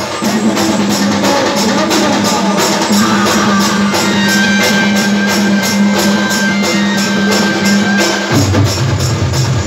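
Live stage band playing a dance number: a steady drumbeat on hand drums and a keyboard, with a long held low note that breaks off about eight seconds in.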